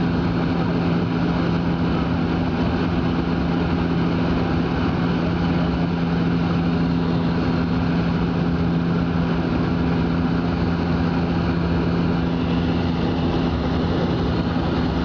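Airliner cabin noise during the descent to landing: the engines and airflow make a steady drone with a low, even hum.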